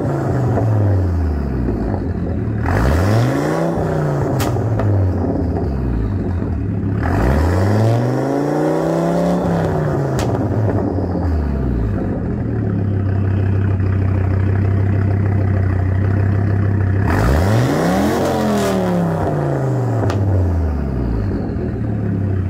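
A 1995 Audi UrS6's 2.2-litre turbocharged inline-five, already warm, runs through a straight-pipe exhaust. It is falling back from a rev at the start, then revved three more times, the middle rev the longest, settling to a steady idle between revs.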